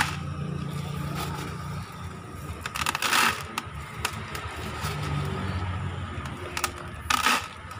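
Spoonfuls of green NPK fertilizer granules dropped into a plastic bucket, rattling in two short bursts, about three seconds in and again near the end, with small clicks of the metal spoon against the bag and bucket between them.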